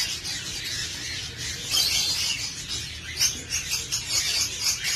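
Small birds chirping and chattering in a steady background chorus.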